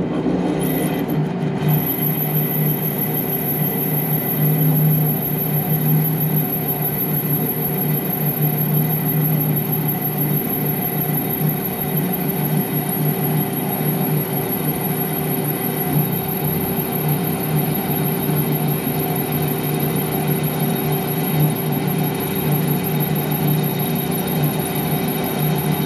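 Metal lathe turning down a Model T driveshaft: a steady running hum from the spindle and gearing, with a high, thin steady squeal from the cut that sets in about two seconds in.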